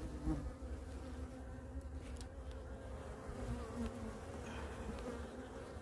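Honeybees buzzing around an opened hive, a steady hum from a colony still active in February, with a couple of faint clicks about two seconds in.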